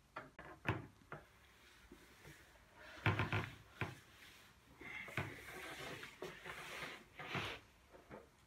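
Scattered knocks, clicks and rustles of people moving things at classroom desks: paper, pens and books, and the camera being handled. The loudest cluster of knocks comes about three seconds in, followed by a stretch of soft rustling.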